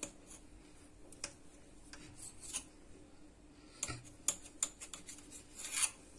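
Kitchen knife cutting through soft yeast dough and knocking against a stone countertop: scattered light clicks and short scrapes, busiest around the middle and near the end.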